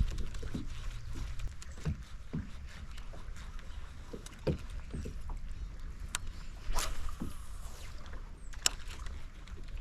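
Kayak being paddled: irregular short splashes and knocks of the paddle in the water, with a few sharper clicks, over a steady low rumble.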